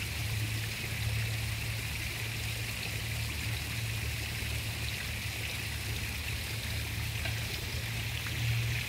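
Steady rushing background noise like running water, with a low, even hum underneath.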